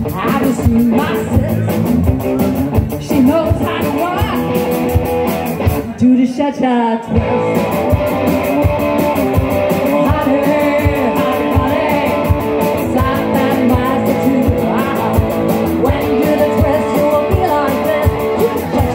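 Live rock band playing: electric guitar and drum kit, with a woman singing. The drums and bass drop out briefly about six seconds in, then the band comes back in.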